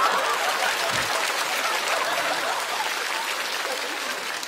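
Studio audience applauding and laughing after a punchline, the clapping slowly dying away toward the end.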